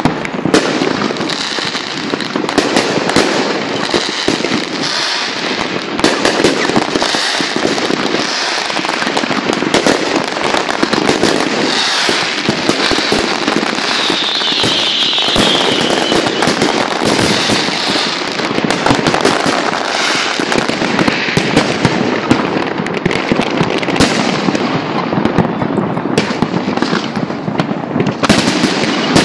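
A large fireworks display: a dense, continuous barrage of many overlapping bangs and bursts, loud and without let-up.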